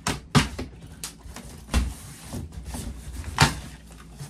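Large cardboard box being handled and opened by hand: a few sharp knocks and cardboard scrapes with rustling between them, the loudest about half a second in, near 2 s and near 3.5 s.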